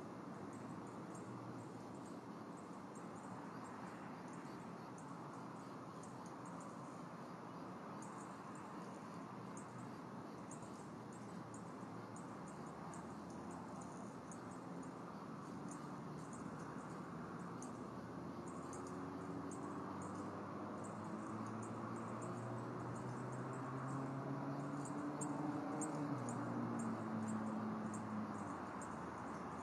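Outdoor ambience picked up by the nest-cam microphone: a steady low rush of background noise with rapid, faint high chirping ticks throughout. In the second half a low droning hum grows louder, falls in pitch and drops away near the end.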